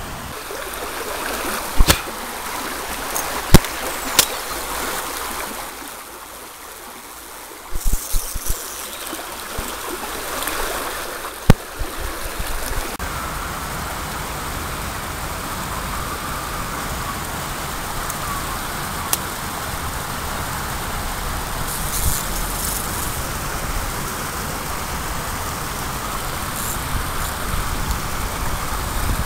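Shallow river water running and pouring over a low weir, a steady rushing that becomes fuller and more even from about halfway through. Several sharp clicks and knocks in the first half stand out above the water.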